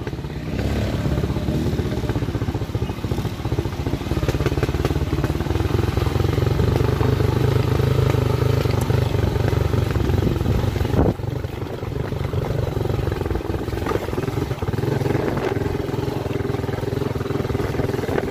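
Motorcycle engine running steadily while riding over a rough dirt and gravel road, with a single sharp knock about eleven seconds in.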